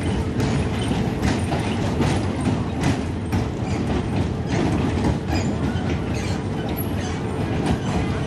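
Small amusement-park kiddie train with frog-shaped cars running on its track: a steady rattling rumble of wheels and couplings, with frequent irregular clicks and clacks and a steady hum underneath.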